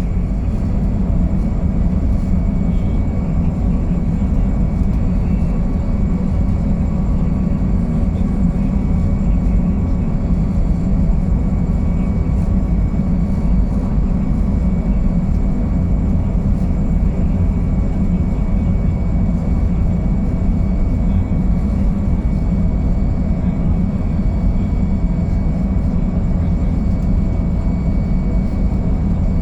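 Boeing Jetfoil 929-115's gas turbines and waterjet propulsion running steadily: a constant low rumble with faint high whining tones above it. The craft is making reduced speed after a suspected collision with an unknown object.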